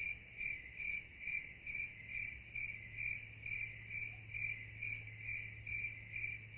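Cricket chirping in a steady, even rhythm, about two high chirps a second.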